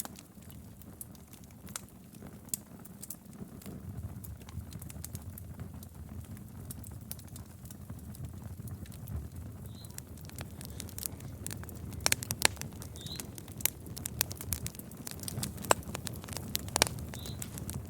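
Fireplace fire crackling, sharp pops and snaps over a low steady rumble of flame. The pops come more often and louder from about two-thirds of the way through.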